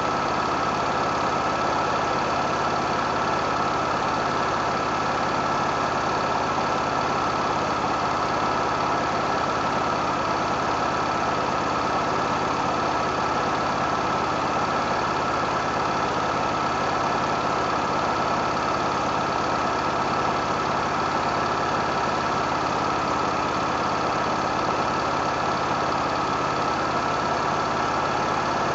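Husqvarna lawn mower engine running loud and steady, with a constant whine on top and no change in speed.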